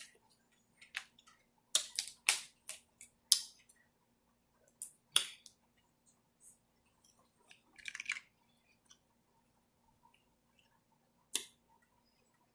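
Close-miked eating sounds: scattered sharp clicks and cracks of seafood shells being broken and mouth sounds. There are several about two to three seconds in, one about five seconds in, a short crackly patch near eight seconds and a last sharp crack near eleven seconds.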